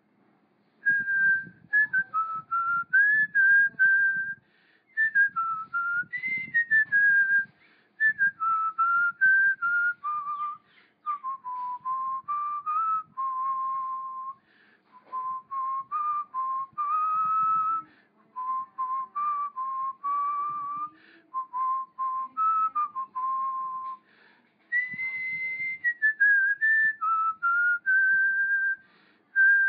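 A melody whistled on a single clear pitch, stepping and gliding between notes in phrases separated by short pauses.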